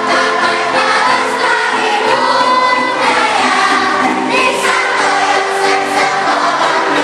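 Children's school choir singing the school march song.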